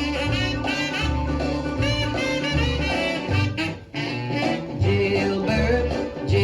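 1956 R&B record playing an instrumental break: a horn line over a repeating bass riff, with a brief dip in level just before four seconds.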